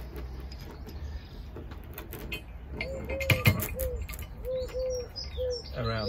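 A pigeon cooing, short hooting notes repeated in a steady phrase, starting about three seconds in. Faint clinks of a steel chain and shackle being handled, with one low knock.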